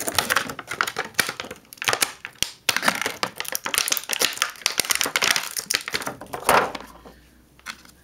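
Clear plastic accessory bag crinkling and crackling as it is handled, a dense run of sharp crackles that dies away near the end.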